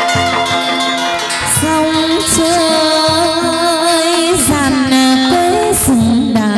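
Chầu văn ritual music: a singer holds long, wavering notes over plucked strings, with several sharp percussion hits.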